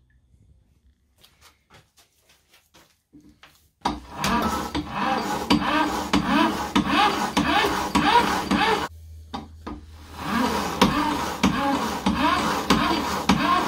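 Faint clicks in near silence, then about four seconds in a wall-mounted buffing wheel is running with its motor humming while something is pressed against it, rubbing with a wavering, shifting pitch. Around nine seconds in the contact breaks for a moment, leaving only the motor hum, and then the rubbing resumes.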